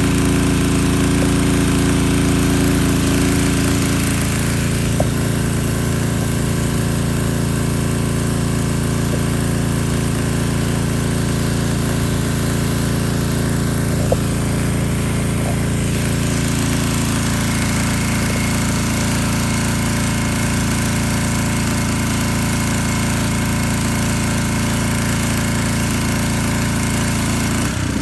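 Pressure washer running steadily: a small engine's drone with the hiss of the water jet over it. The engine note shifts slightly about four seconds in.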